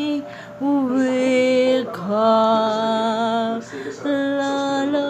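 A woman singing a lullaby unaccompanied, in about three long held notes with short breaths between them.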